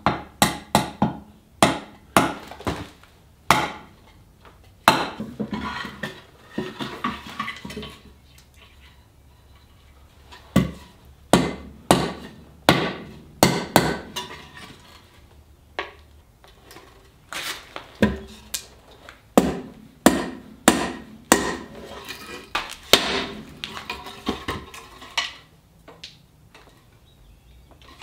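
Dozens of sharp wooden knocks in irregular runs, with a short lull about eight seconds in: the dowelled boards of a barrel head being knocked together and tapped down on a wooden block to close the joints.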